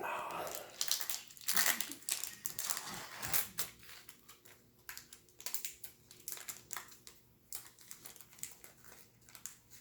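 Crinkling and tearing of a card booster pack's wrapper being pulled open by hand: dense crackling for the first few seconds, then sparser rustles and clicks.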